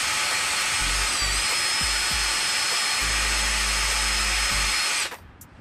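Cordless DeWalt power tool spinning a cleaning attachment against a rusty brake caliper slide pin, with a steady whine. The pitch sags briefly about a second in as it bites, and the tool stops about five seconds in.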